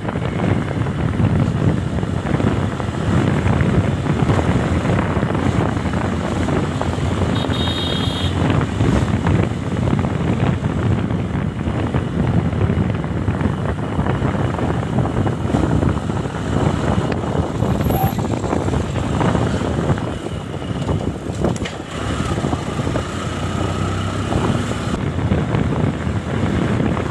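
Wind rushing and buffeting over the microphone of a moving motorcycle, with the ride's engine and road noise underneath.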